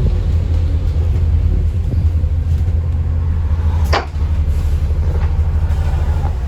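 Alexander Dennis Enviro400 MMC double-decker bus engine and Voith-geared drivetrain heard from on board: a steady low rumble while the bus runs. There is one sharp knock or rattle from the body about four seconds in.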